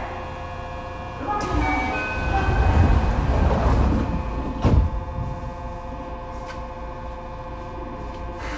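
Yokohama Municipal Subway 3000A car at a stop: its sliding doors run shut, ending in a sharp thump about halfway through, over the steady hum of the car's equipment with several steady tones.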